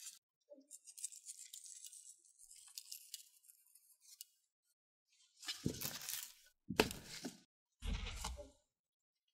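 Gloved hands handling raw pork slices in a stainless steel tray: a faint crackly rustle, then three louder rustles about a second apart near the end.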